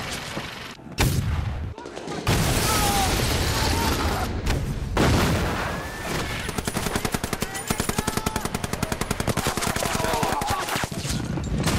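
Battle gunfire with men shouting: sudden heavy shots and blasts near the start, then from about six seconds in a rapid, even rattle of automatic fire for about five seconds.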